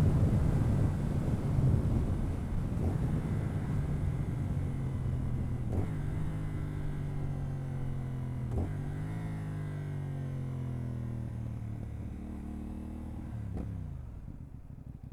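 CFMoto 450NK parallel-twin engine through its stock exhaust, heard from on board, its pitch slowly falling as the bike slows; the wind noise fades with the speed. Two short knocks about six and nine seconds in, and near the end the engine drops lower and settles toward idle.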